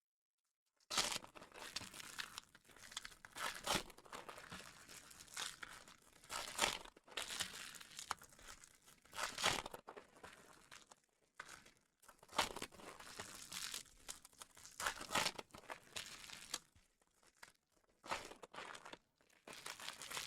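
Trading card pack wrappers being torn open and crinkled, in repeated irregular bursts of ripping and rustling that start about a second in.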